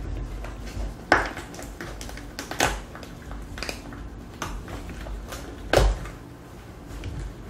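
Cooked lobster shell cracking and snapping as gloved hands twist and pull a whole lobster apart: a handful of sharp cracks, the loudest about a second in and near six seconds in.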